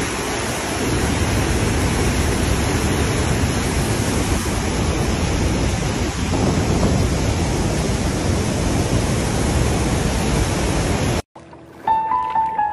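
Steady rush of a waterfall's falling water, cutting off suddenly about eleven seconds in. Piano music starts a second later.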